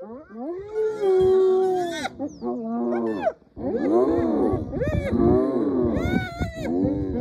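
A group of spotted hyenas calling together in a chorus of high, wavering giggles and squeals. The calls break off briefly about halfway through, then come back denser.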